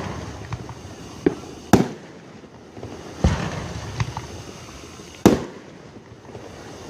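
Aerial fireworks shells bursting: a string of sharp booms, the loudest about two, three and five seconds in, each trailing off in a fading rumble, with smaller pops between.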